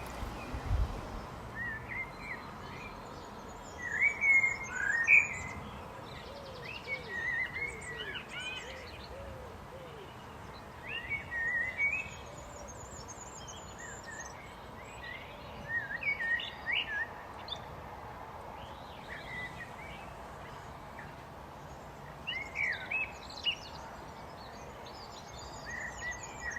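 Common blackbird singing: short fluty, warbling phrases every few seconds, most of them ending in a thin high twitter, over a steady background hiss.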